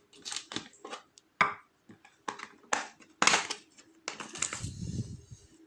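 Small metal lock parts and tools being handled: a string of short clicks and scrapes, with a low rumbling handling noise near the end.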